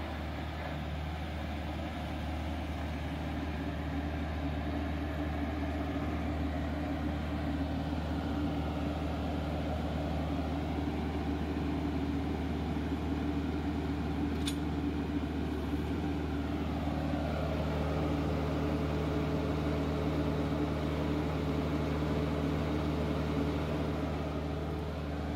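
2016 New Holland Boomer 41's 2.2-litre four-cylinder diesel engine running steadily, with one brief tick about halfway through.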